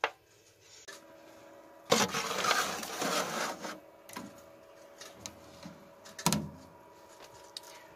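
Aluminium foil pan scraping and crinkling as it is slid onto the wire rack of a Gourmia air fryer oven, then the oven's glass door shutting with a sharp knock about six seconds in. A steady hum from the preheated oven runs underneath.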